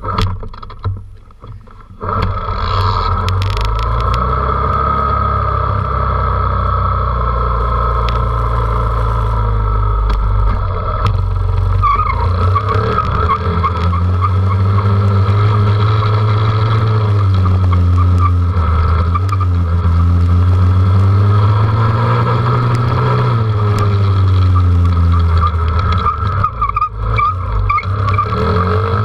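Dirt bike engine starting up about two seconds in, then running as the bike is ridden, its pitch rising and falling with the throttle.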